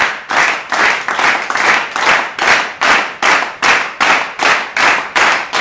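Audience clapping in time, an even beat of about two and a half claps a second.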